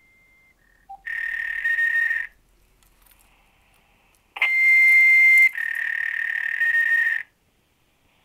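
Repeating electronic tones played back from a voicemail recording: steady, high-pitched beeps with a hissy, phone-line edge. One beep lasts about a second; a louder one starts about four seconds in and steps slightly down in pitch, running on for nearly three seconds.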